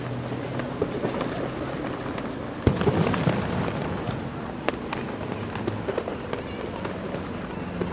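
Fireworks bursting some way off, out of sight behind buildings: a few separate booms, the loudest a little under three seconds in, over steady city street noise.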